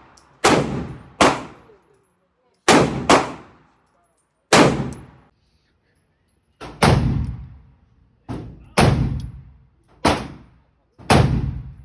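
A gun fired about ten times at an uneven pace, some shots in quick pairs, each crack trailing off in a short echo. The shots in the second half carry more low-end boom.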